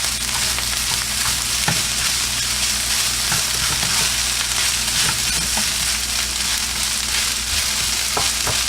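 Chicken fried rice sizzling in a hot pan, a steady frying hiss, with a few light scrapes and taps as it is stirred.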